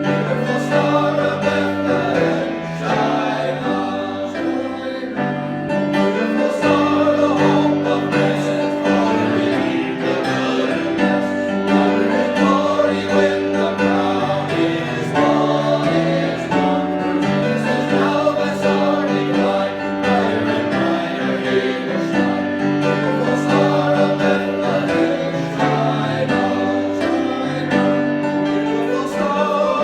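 A church choir singing a carol with instrumental accompaniment.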